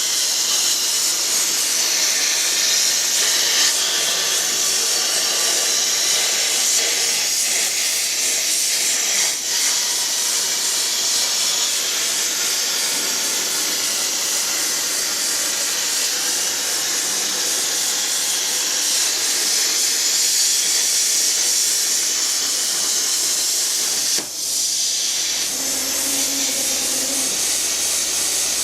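Plasma cutter cutting: a steady, loud hiss of the arc and its air supply, with two brief dips, about 9 and 24 seconds in.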